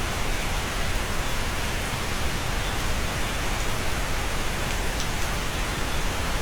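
Steady rain falling, an even hiss with a single drop ticking out now and then.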